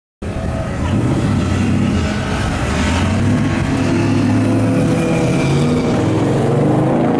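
Mazda Miata race car's four-cylinder engine running steadily at low revs as the car creeps up to a stop, starting abruptly just after the start.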